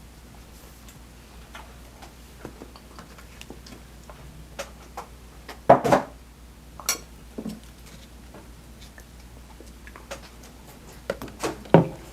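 Close-miked eating: chewing with scattered short mouth clicks and smacks. There are a few louder bites or smacks about six seconds in and again near the end.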